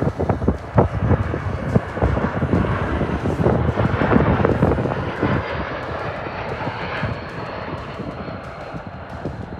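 Jet aircraft engine noise swelling to a peak about halfway through, then easing off with a faint high whine, with gusts of wind buffeting the microphone.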